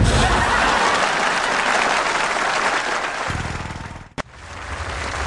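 A low whoosh of a fireball bursting up from a barbecue, followed by studio audience applause that fades away over about four seconds.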